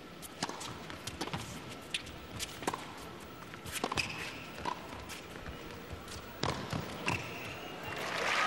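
Tennis rally on a hard court: irregular sharp racket strikes and ball bounces, with a few short shoe squeaks. Crowd applause swells in near the end as the point finishes.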